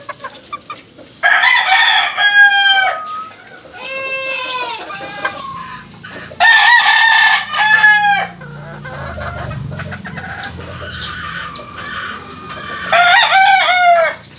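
Gamefowl roosters crowing: four crows, each about a second or a second and a half long with the pitch stepping down toward the end; the second crow is fainter.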